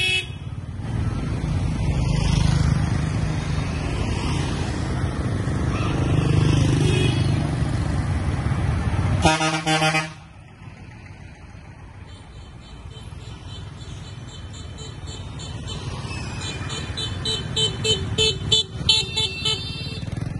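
Road traffic of motorbikes and cars passing close by, with one loud vehicle horn blast about nine seconds in. The traffic noise then drops, and a run of short horn beeps follows near the end.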